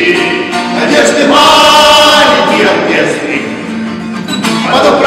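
A small group of men singing a song together with acoustic guitar accompaniment, holding one long note about a second and a half in.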